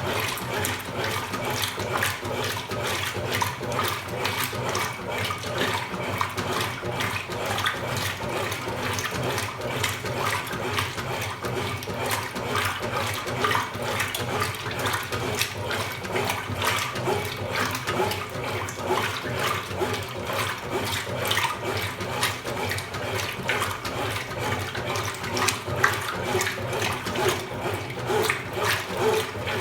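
Water splashing and running steadily inside the tub of a Consul Super Cargo 8 kg top-loading washing machine (CWL08C) during its wash cycle.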